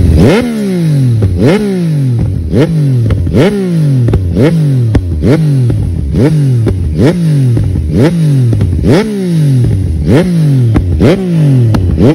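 Sport motorcycle engine revved in quick throttle blips over and over, about once a second, each rev shooting up in pitch and falling back, with sharp pops from the exhaust at each blip: the bike is spitting flames from its exhaust.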